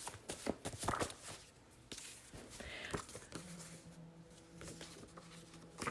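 Soft taps and rustles of tarot cards being handled. About halfway through, a low, steady drone of background music comes in.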